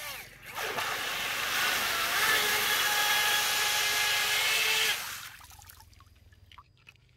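Electric RC water jet thruster running with its nozzle at the water surface, blasting a jet of spray across the water: a loud hissing rush with a steady motor whine underneath. It starts about half a second in and cuts off about five seconds in, leaving only faint dripping.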